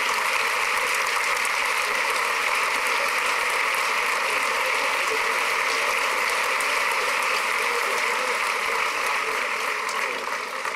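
A large crowd applauding steadily, a dense continuous clapping that starts to fade near the end.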